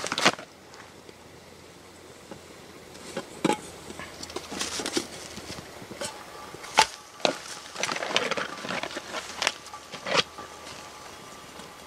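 Camp cooking gear being handled beside a small stove: rustling of a fabric pouch and several sharp metal clicks and clinks from a pot and its lid, the loudest about 7 and 10 seconds in.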